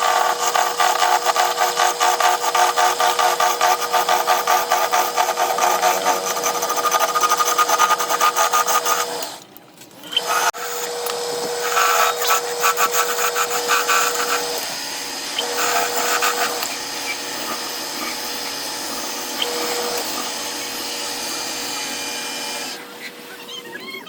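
Wood lathe running with a steady hum while a hand turning tool cuts the spinning wood, a fast scraping chatter. The sound drops out briefly about ten seconds in, then carries on more quietly.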